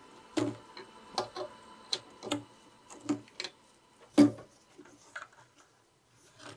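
Irregular clicks and knocks from a screwdriver and gloved hands working plastic corrugated conduit fittings and trunking at the base of an inverter, about ten in all, the loudest a little after four seconds in.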